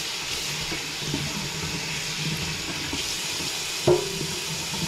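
Cold water running steadily from a kitchen faucet into a stainless steel sink as hands are wet under it. A single sharp knock about four seconds in.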